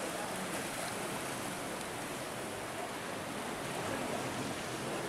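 Sea surf washing against shoreline rocks, a steady rush of water noise.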